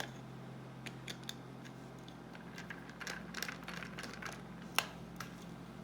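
Low steady electrical hum of a doorbell chime left buzzing under constant power, because of a stuck button or shorted wiring. Scattered small clicks and taps come from handling the doorbell button and its wires, with one sharper click about five seconds in.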